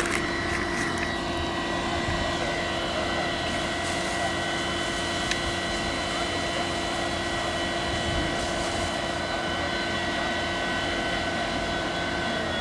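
Fire-service equipment at a fire engine running steadily: a constant engine-like drone with a low hum and several high, steady whines.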